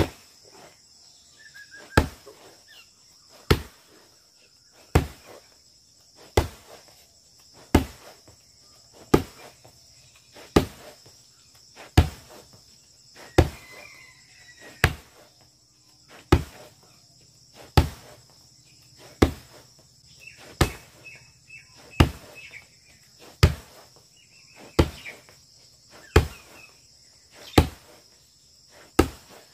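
Roundhouse kicks (mawashi geri) slapping into a padded striking target roped to a tree trunk: one sharp smack about every second and a half, some twenty in a steady run.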